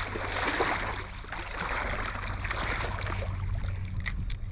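Steady noise of flowing river water with a low wind rumble on the microphone, and a few faint ticks about four seconds in.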